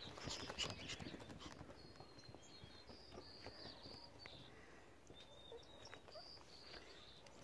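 Faint taps and scuffles of pomsky puppies' paws moving about on outdoor carpet, busiest in the first second or so. A few faint, short, high chirps sound in the background in the middle of the stretch.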